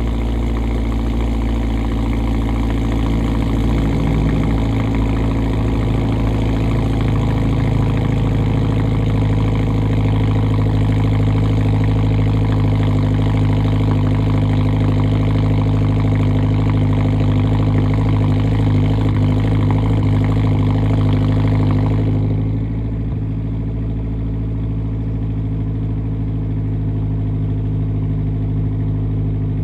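Straight-piped VB Subaru WRX's turbocharged 2.4-litre boxer four idling steadily just after a cold start. About three-quarters of the way through the sound turns slightly quieter and duller, losing its hiss, while the idle carries on.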